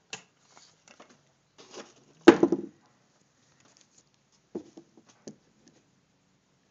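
Handling noise: scattered light knocks and rustles, with one louder clatter about two seconds in.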